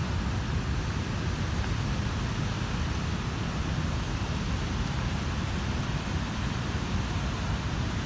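The Rhine Falls, a large waterfall, giving a steady, even rush of falling and churning water, heaviest in the low range.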